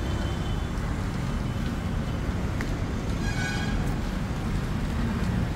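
Steady low rumble of vehicle noise, with a brief faint higher tone about three seconds in.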